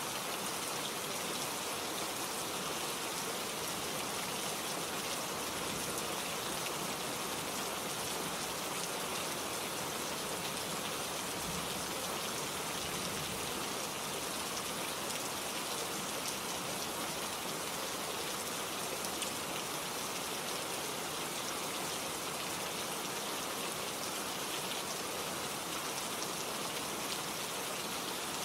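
Steady rain falling: an even hiss of many drops at a constant level, with no thunder.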